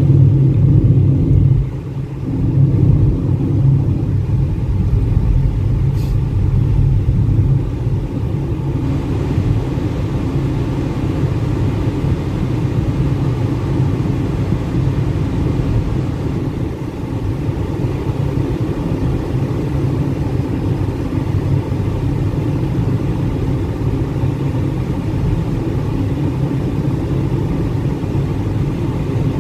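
Car driving on a highway, heard from inside the cabin: a steady low rumble of engine hum and tyre and road noise.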